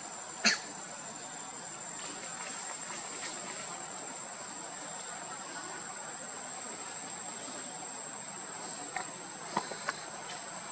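Insects droning with a steady high-pitched tone over a faint outdoor hiss. A brief sharp sound comes about half a second in, and a few fainter clicks come near the end.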